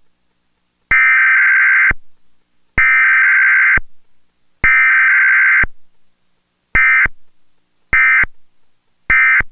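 Emergency Alert System SAME digital data bursts for a Required Weekly Test: three one-second bursts of buzzing two-tone data make up the header, then three short end-of-message bursts follow, each separated by about a second of silence. There is no attention tone and no spoken message between them.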